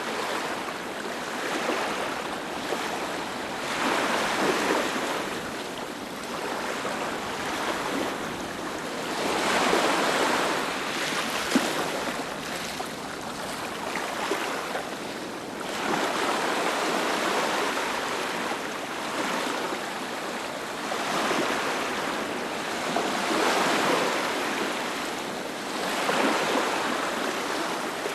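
Ocean waves breaking and washing up a beach, a steady surf noise that swells and falls back every few seconds.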